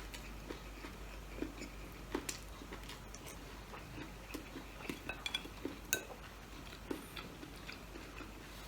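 Eating at close range: chewing and mouth sounds, with scattered light clicks and taps of cutlery and dishes.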